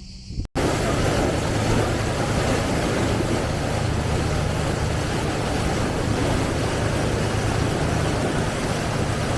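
Excursion boat's engine running at a steady hum under a constant rush of wind and water, starting abruptly about half a second in.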